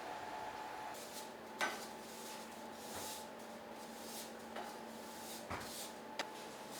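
Kitchen work: a few sharp knocks and clanks of pots or utensils being handled, over the steady hum of kitchen equipment.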